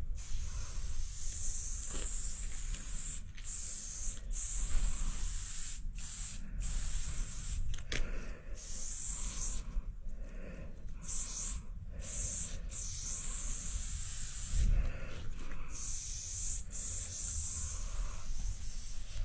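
Aerosol spray-paint can hissing as white outline lines are sprayed. It comes in stretches of about one to two seconds, broken by short gaps as the nozzle is released and pressed again, over a low rumble.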